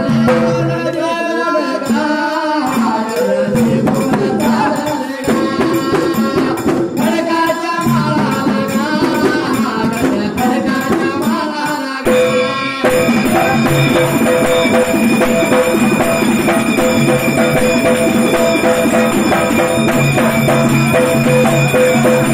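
Dhangari ovi folk music: male voices singing over a large barrel dhol, a small stick-beaten drum and small hand cymbals. About twelve seconds in the singing stops and the drums and cymbals play on alone in a dense, even rhythm.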